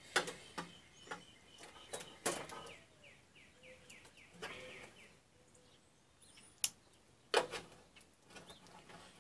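Flathead screwdriver being worked into the seam of a toaster's top, giving scattered sharp clicks and scrapes of the blade on the housing. The loudest are two knocks about seven seconds in.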